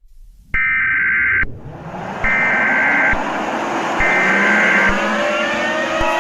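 Three bursts of EAS SAME header data tones, each a buzzy digital warble about a second long with a click at its start and end, over a siren winding up and rising in pitch. Near the end the steady two-tone EAS attention signal starts.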